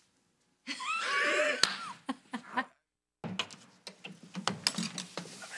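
People laughing: a high, wavering laugh, then after a brief break, choppy bursts of laughter with sharp clicks.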